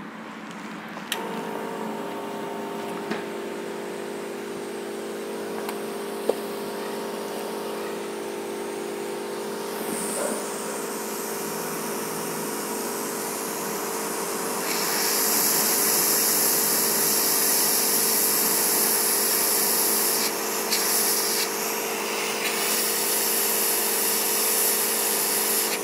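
Hot-air rework gun blowing over the laptop motherboard to heat a replacement MOSFET into place. It switches on with a click about a second in, then gives a steady fan hum and hiss, and the airflow hiss gets clearly louder about fifteen seconds in.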